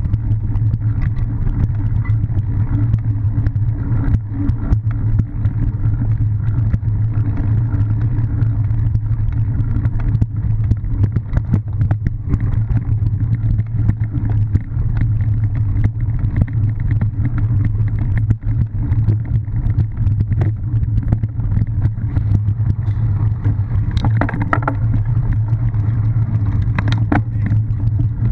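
Wind rumble and rattle on a bike-mounted action camera while riding a cyclocross bike over bumpy grass and leaf-covered ground: a steady loud low rumble with many small knocks and clicks, a few sharper clatters near the end.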